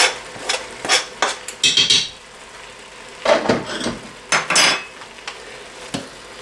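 A spoon knocking and scraping against a plastic cutting board and the rim of an Instant Pot's stainless-steel inner pot as grated carrot and garlic are scraped in, then stirring the mince and vegetables in the pot. Several sharp clatters come in the first two seconds, with two more bursts about three and a half and four and a half seconds in.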